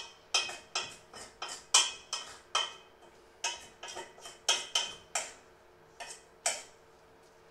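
A utensil repeatedly clinking and scraping against a stainless-steel mixing bowl while a thick mixture is worked, about two or three sharp metallic knocks a second with brief ringing. The knocks come in irregular runs with short pauses about three seconds in and again near six seconds.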